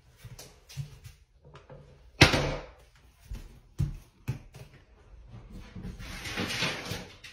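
A door banging once about two seconds in, followed by a couple of lighter knocks, then a rushing noise that swells and fades near the end.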